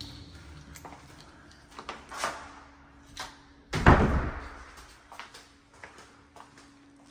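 Interior panel door being opened: a few knocks and a rustle, then a loud thud about four seconds in that echoes briefly through the empty rooms.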